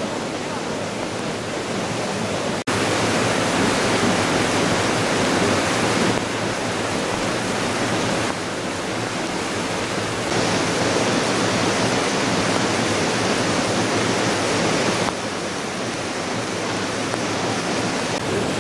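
River in spate: muddy floodwater rushing and churning in a steady, loud rush. The level jumps up and down a few times, with a brief dropout about two and a half seconds in, where the recording is cut.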